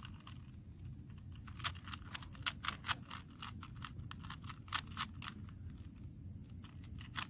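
Plastic Rubik's Cube being turned quickly during a speed-solve, its layers giving sharp, irregular clicks, several a second at times, loudest about two and a half to three seconds in.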